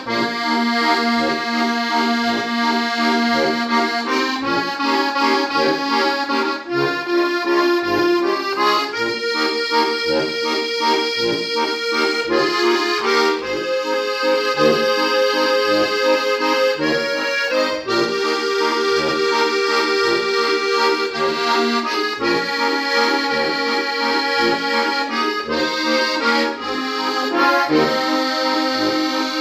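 Styrian button accordion (Steirische Harmonika) playing a folk-pop tune: a bright reedy melody and chords over regular, evenly spaced bass notes.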